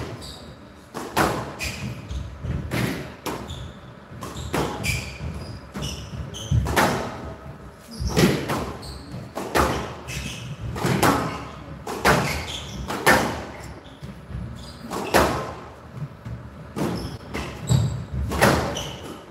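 Squash rally: the ball is struck by rackets and cracks off the glass court's walls, a sharp echoing hit every second or two. Short high squeaks from the players' shoes come between the hits.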